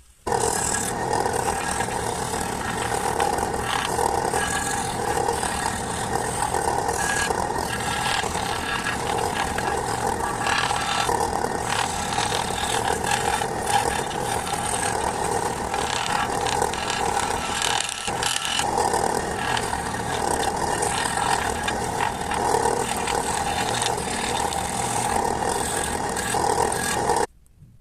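An electric power tool's motor runs steadily as it works the wood, then cuts off abruptly near the end.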